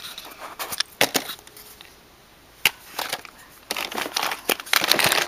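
Small makeup containers (eyeshadow pots and compacts) clicking and clattering against each other and a plastic drawer as a hand moves them around. Sharp clicks come scattered at first and thicken into a busy clatter near the end.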